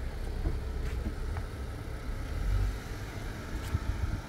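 Low, steady rumble of a motor vehicle engine running, with a few faint clicks.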